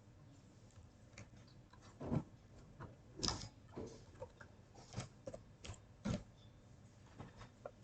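Irregular clicks from a computer mouse and keyboard, a handful of separate clicks roughly a second apart.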